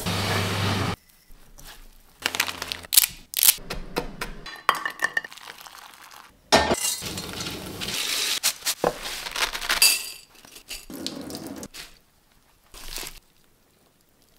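Kitchen prep sounds in quick succession: metal and glass clinking, knocking and scraping as food is tipped from a stainless steel bowl into a mesh sieve over a glass bowl, with short quiet gaps between.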